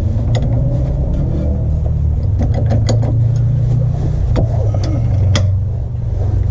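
A steady low rumble with scattered light metallic clinks and knocks of hand tools and parts being handled.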